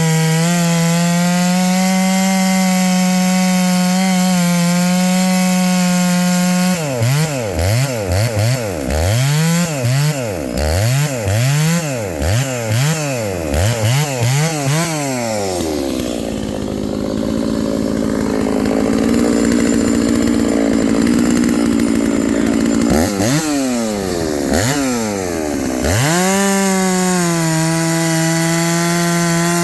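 Two-stroke 660-class clone chainsaw cutting dry elm, its engine held at steady high revs, then revved up and down repeatedly about once a second for several seconds, then steady at high revs again near the end.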